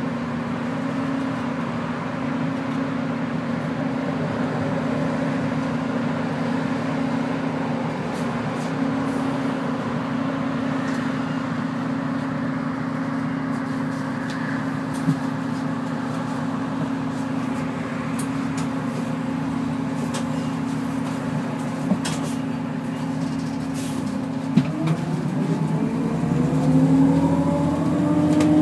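Cummins ISL-G natural-gas engine of a NABI 40-LFW city bus, heard from inside the passenger cabin, running at a steady low pitch, with a few light knocks. About 25 seconds in it revs up, its pitch rising as the bus accelerates away.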